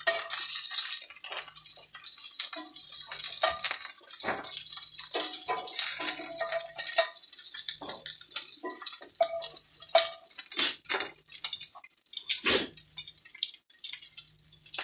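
Meatballs sizzling and crackling in hot fat in a cast iron skillet, while metal tongs lift them out. There are frequent short clicks and brief ringing clinks of the tongs against the pan and a metal bowl.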